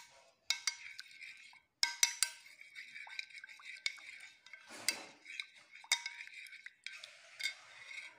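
Metal spoon stirring and scraping a thick cream-and-yogurt marinade around a glass bowl, with repeated sharp clinks of the spoon against the glass.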